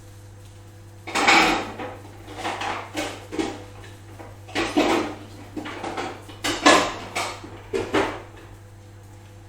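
Kitchen clatter of dishes and cutlery being handled: a run of irregular clinks and knocks from about a second in until near the end, over a steady low hum.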